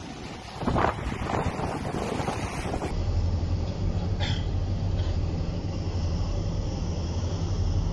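Wind buffeting the microphone over rough open sea, in gusts. About three seconds in, the sound changes to a steadier rush over a low, even hum from a boat's engine.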